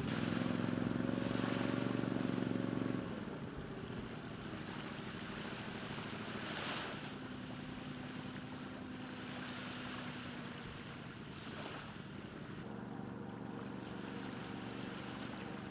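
A wheeled amphibious boat's engine running steadily as it drives into the sea, with water and wind noise. About three seconds in the engine drops to a quieter, lower drone, and a little past halfway there is a brief gust of noise.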